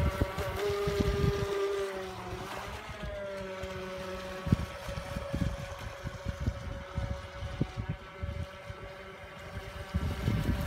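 Small battery-powered motor of a remote-controlled boat whining steadily, its pitch wavering slightly. Wind buffets the microphone, and there are a few light knocks.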